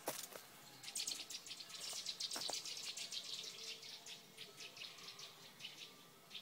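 Cicada singing in the trees: a fast series of high, rasping pulses that starts about a second in and fades toward the end.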